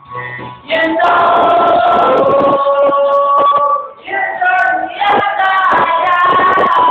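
A singer holding long notes into a microphone over backing music with a beat, breaking off briefly about four seconds in before singing on.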